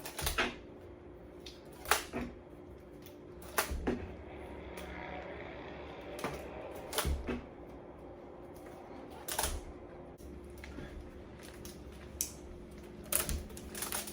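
Rubber bands snapping one at a time around a watermelon: sharp, irregular snaps every second or two, with a faint steady hum underneath.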